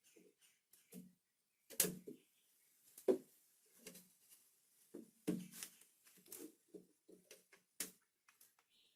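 Scattered clicks and knocks of a screwdriver prying at a plastic ignition switch's retaining clip to work it out of a mower's panel; the sharpest knocks come about two, three, five and eight seconds in.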